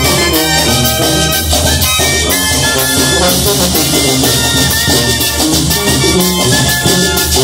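A Mexican banda (brass band) playing live. A sousaphone carries the bass line under the horns, and a tambora bass drum with cymbal and a snare keep a steady beat.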